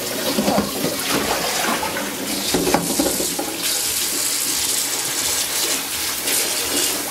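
Tap water running steadily into a stainless steel basin in a sink, the stream splashing on the metal and water.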